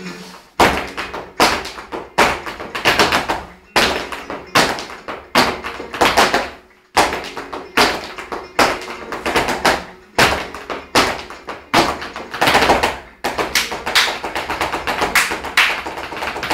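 Flamenco dance footwork: heeled shoes stamping on a hard floor and hands clapping in a quick, steady rhythm, over flamenco music.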